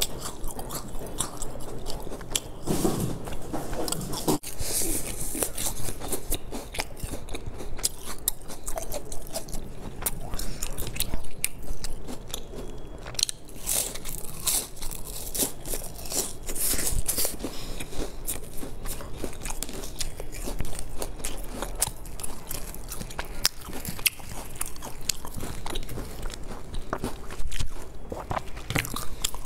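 Close-miked biting, crunching and chewing of flaky, crisp-crusted round pastries: a steady run of sharp crackling snaps.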